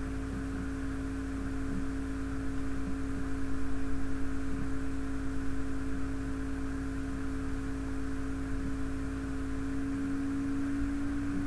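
A steady electrical-style hum holding one low tone, with fainter steady tones and hiss beneath it; the main tone grows stronger near the end.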